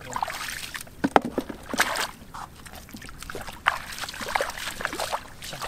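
Bare feet wading through shallow muddy water, with irregular splashes and sloshes, the loudest about a second in and near two seconds.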